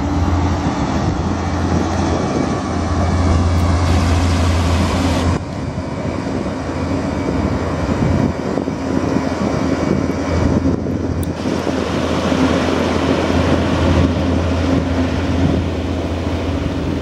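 Passenger hovercraft's engines and twin ducted propellers running with a steady loud drone, over a rushing wash of air and spray. The sound drops and changes abruptly about five seconds in.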